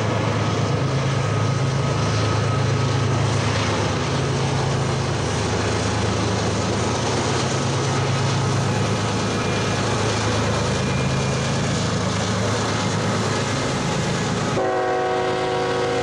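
A lash-up of diesel-electric freight locomotives running hard as they climb the grade, with a steady low engine drone over wheel and rail noise. About a second and a half before the end, a locomotive horn starts blowing a sustained chord.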